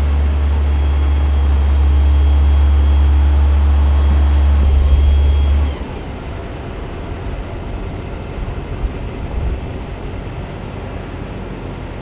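Truck-mounted crane's engine running with a steady low drone; a little under six seconds in the drone drops away suddenly, leaving a quieter low rumble.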